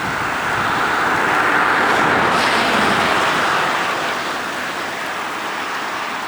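A vehicle passing on the highway, its tyre noise swelling to a peak about two seconds in and fading away, over the steady rush of floodwater runoff pouring into a roadside ditch.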